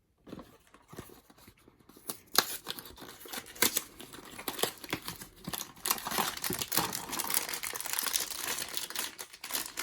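Blind-box packaging being handled: a few light clicks, then from about two seconds in, crinkling and tearing of cardboard and foil wrapping that grows steady toward the end.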